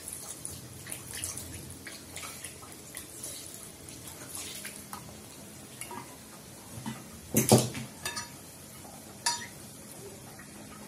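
Steamed vermicelli being broken up with a metal fork and by hand in a bowl: light scrapes and clinks of the fork against the bowl throughout. One loud clatter of utensils comes a little past halfway, and a smaller clink about two seconds later.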